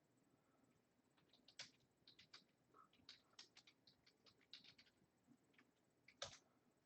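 Faint, quick clicks of typing on a computer keyboard, with one louder click near the end.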